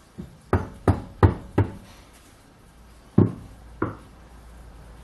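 Mallet blows driving the spindle out of a Schaublin 102 lathe headstock: a light tap, four sharp strikes in quick succession about a third of a second apart, then two more a couple of seconds later.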